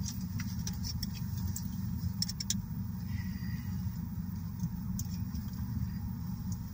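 A truck engine idling, heard from inside the cab as a steady low rumble, with a few faint light clicks.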